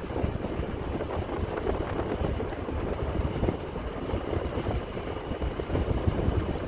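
Wind buffeting the microphone in a steady, fluttering low rumble.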